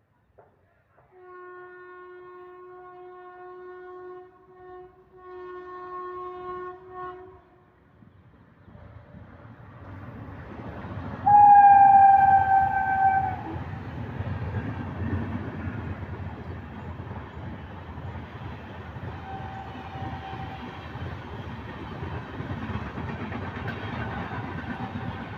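WAP-7 electric locomotive horn sounding two long blasts, then the express train approaching with a rumble that grows. A second, much louder horn blast comes as the locomotive passes, its pitch dropping slightly, followed by the steady rumble of the coaches rushing past and a brief fainter horn.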